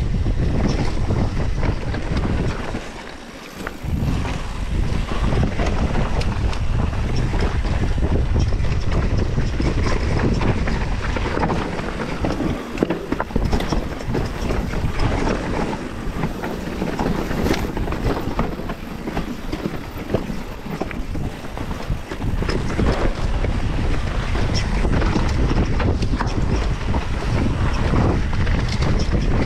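Wind buffeting the microphone of a mountain bike's camera at speed on an enduro descent, with tyre noise and scattered knocks and rattles from the bike on rough ground. The wind noise drops briefly about three seconds in.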